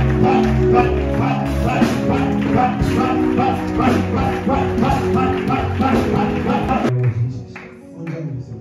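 Music with instruments and a steady beat, which cuts off abruptly about seven seconds in, leaving quieter sounds.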